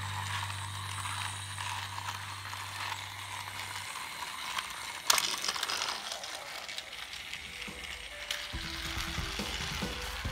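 Battery-powered Thomas TrackMaster toy engine running on plastic track, its motor and gears making a rapid, steady clicking rattle, with one sharp plastic clack about five seconds in.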